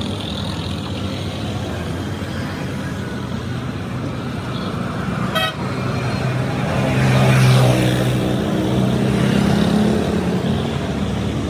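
Steady traffic noise with a motor vehicle running close by. Its low engine note swells from about halfway through and holds for several seconds, with a short run of clicks just before.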